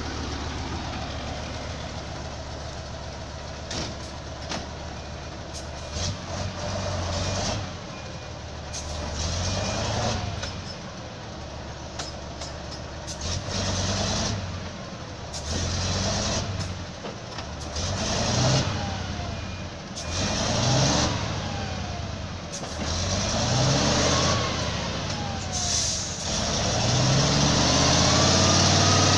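Diesel engine of a heavy, log-loaded logging truck stuck in mud. It runs steadily at first, then is revved over and over, rising and dropping every two to three seconds as the drive wheels spin for grip. Near the end it is held at high revs with the wheels spinning in the mud.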